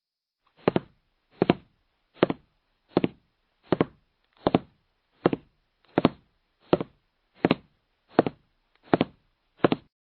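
Footsteps walking on a floor: thirteen steady steps about three-quarters of a second apart, each a quick double knock of heel then toe, with dead silence between steps.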